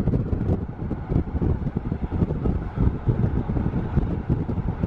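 Wind buffeting the microphone over the rumble of a moving car.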